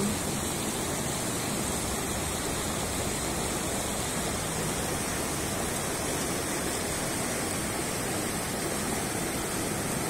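Steady rush of a mountain river's water pouring through a chain of rock troughs and small cascading waterfalls, an even noise that neither rises nor falls.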